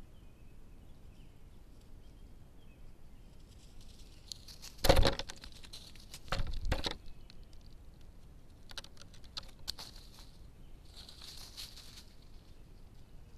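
Dry leaf litter and twigs rustling and crackling in several separate bursts: the loudest a sharp crunch about five seconds in, another about a second and a half later, then quieter crackles and a softer rustle near the end.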